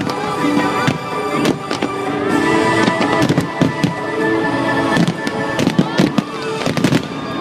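Fireworks display: many sharp bangs and crackles in quick succession, thickest about five to seven seconds in, over music playing.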